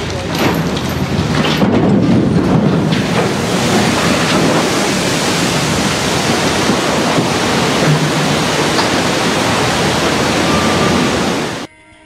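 Loud, steady rush of splashing water as a cargo ship is side-launched and its hull drops into the canal, throwing up a large wave. The sound cuts off suddenly near the end.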